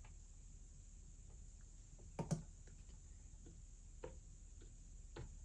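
Finger presses on the rubber pad buttons of an Akai APC Mini MK2 MIDI controller. A quick double click comes about two seconds in and a softer single click about four seconds in, over faint room tone.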